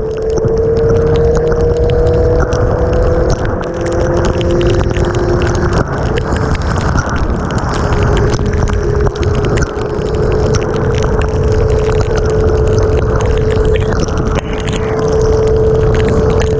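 Sport motorcycle engine running at a steady cruise in heavy rain. Its note rises slightly over the first several seconds, drops away about six seconds in, then holds steady again. Strong wind rush on the microphone and scattered raindrop ticks on the camera run underneath.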